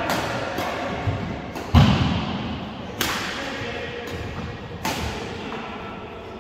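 Shuttlecock struck back and forth with badminton rackets in a rally, sharp cracks echoing in a large hall. The hits come quickly in the first two seconds, the loudest with a heavy thump about two seconds in, then single hits about three and five seconds in.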